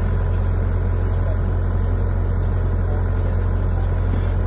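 Caterpillar E120B excavator's diesel engine running steadily with a deep rumble.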